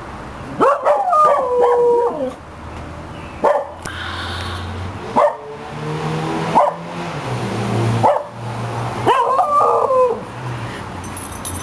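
American cocker spaniel howling: a wavering howl that steps down in pitch about a second in and another like it near the end, with short barks and a lower drawn-out sound between. It is an old-sounding howl for a young dog.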